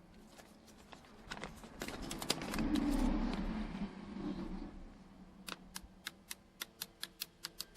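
The plastic rocker buttons of a new power window and door lock switch being pressed by hand, clicking crisply in a quick series of about four or five clicks a second in the second half, after some rustling as the part is handled.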